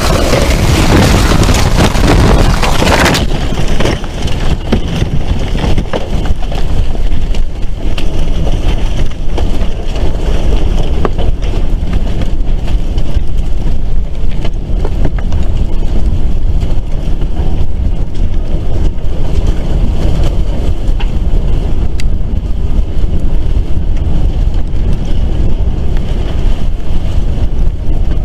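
Tornado winds roaring around a house, heard through a home camera's microphone with heavy wind buffeting. A very loud rush for the first three seconds, then a steady, deep roar with a few sharp clicks.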